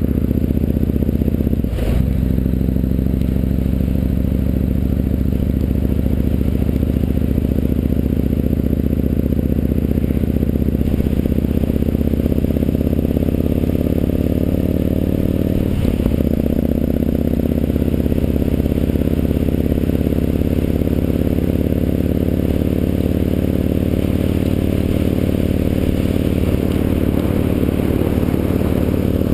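Yamaha MT-01's big air-cooled V-twin engine running under way, heard through a chest-mounted GoPro case with a wind-noise fix, so there is little wind rush over the engine. The pitch dips briefly about two seconds in and again about halfway, then climbs steadily: the bike is accelerating through the gears.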